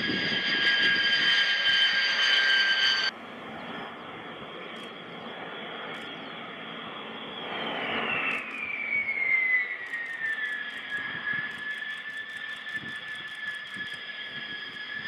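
B-2 Spirit's four General Electric F118 turbofans running at high power, a steady high-pitched jet whine over a rushing noise. It cuts off abruptly about three seconds in and gives way to a quieter jet whine that slides down in pitch between about eight and eleven seconds in.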